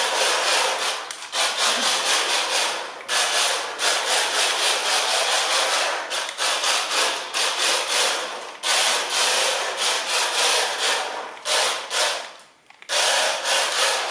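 HB Toys 1:24 four-wheel-drive RC drift car on slick tyres running and sliding across a laminate floor: a hissing, scrubbing rush of tyres and small drivetrain that comes in repeated surges as the throttle goes on and off, dropping out briefly three times.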